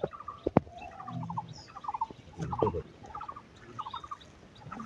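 Short chattering animal calls, each a quick run of three to five pulses, repeated every half second to a second, with a few sharp clicks in between.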